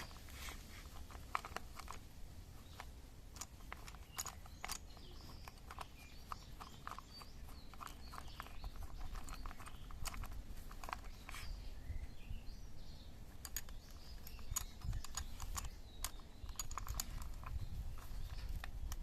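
Irregular light clicks and taps of hand tools and small metal parts being handled during gearbox work, over a steady low rumble.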